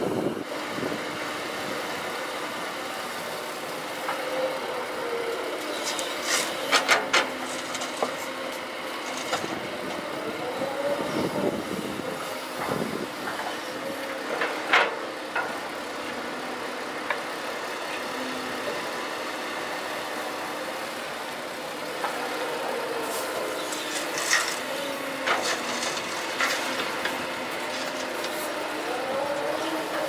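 Heavy construction vehicles' diesel engines running steadily, the pitch swelling up and back down a couple of times. There are sharp metallic clanks now and then.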